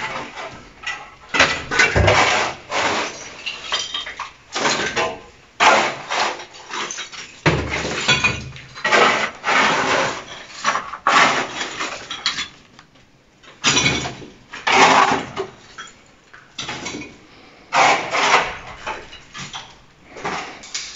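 Long-handled shovel scraping and scooping broken brick and tile rubble off a floor, in irregular strokes with clattering and hard clinks of debris and a heavy thump about two seconds in.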